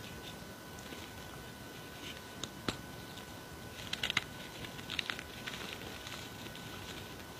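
A block of reformed gym chalk being squeezed and crumbled by hand into loose chalk powder. Soft powdery crunching with scattered crackles, one sharp crack under three seconds in and a run of crunches around four to five seconds in.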